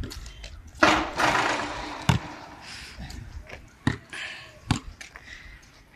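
Basketball bouncing on a concrete court: a handful of separate, irregularly spaced thuds, with a rushing noise lasting about a second after the first one.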